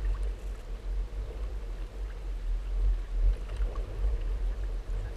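Water rushing and gurgling along the hulls of a Hobie Tandem Island sailing trimaran under way, with gusty wind buffeting the microphone in a steady, uneven low rumble.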